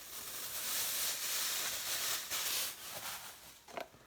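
Crushed biscuit crumbs poured from a plastic bag into a container: a steady dry rustle that dies away after about three seconds, with a couple of light taps near the end.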